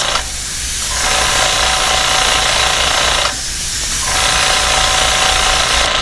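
Airbrush spraying paint in a steady hiss of air, over the constant hum of its compressor. The spray eases back twice for a moment, near the start and again a little past halfway.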